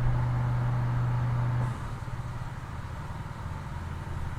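Steady low mechanical hum that drops in level and shifts to a slightly lower hum a little under two seconds in.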